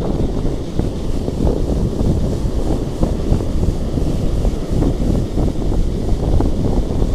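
Strong sea wind buffeting the microphone, a steady low rumble that rises and falls unevenly.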